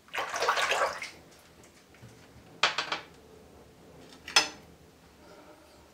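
Water splashing at a bathroom sink: a rinse lasting about a second at the start and a shorter splash a little before the middle, followed by a single sharp knock about three-quarters of the way through.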